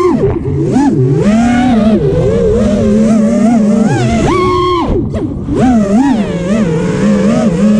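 FPV racing quadcopter's brushless motors and propellers whining, heard from the camera on board. The pitch swoops up and down constantly with the throttle, with a sharp dip about five seconds in.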